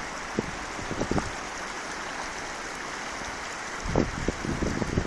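Floodwater flowing in a steady rush. About four seconds in, gusts of wind start buffeting the microphone with an uneven low rumble.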